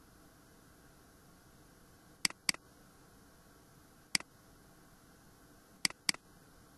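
Computer mouse button clicks over a faint steady hiss: a double-click about two seconds in, a single click, then another double-click near the end.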